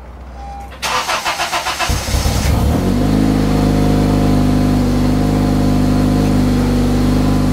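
Car engine cold-started after sitting a full day: the starter cranks for about a second and a half, the engine catches, flares up and settles into a steady fast idle. The exhaust has a leak at a damaged flange, and the owner finds it doesn't sound that bad.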